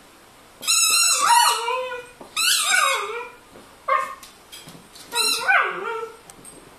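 Manchester Terrier howling in short, downward-sliding calls, mixed with the rapid high squeaks of a squeaky toy being squeezed. It comes in three bursts of about a second each, with a brief one in between.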